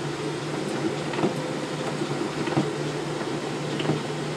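Steady low motor hum over an even hiss of rain, with a few faint taps.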